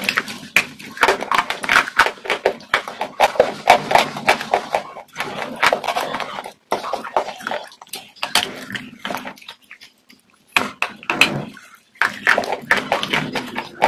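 Close-miked chewing: rapid wet, crackling mouth sounds and lip smacks, with a short pause about ten seconds in.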